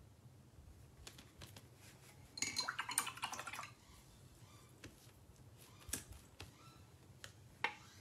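Painting supplies handled on a tabletop: light taps and clicks, with a louder bout of clinking and rattling about two and a half seconds in, and a couple of single sharp clicks near the end.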